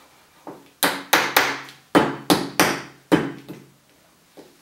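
A kitchen knife striking again and again at a banana frozen rock-hard in dry ice, on a cutting board: a light knock, then about seven sharp chopping knocks in a little over two seconds. The blade does not cut through the frozen banana.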